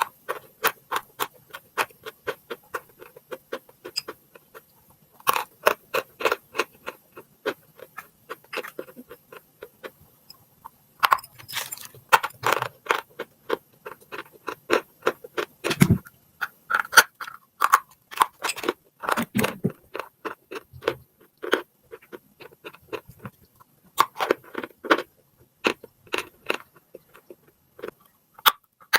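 Chalk being bitten and chewed, in quick runs of sharp crunching clicks with short pauses between runs.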